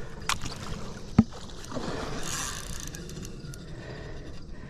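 Stream water splashing and sloshing around a hooked carp as it is landed, with two sharp clicks in the first second or so.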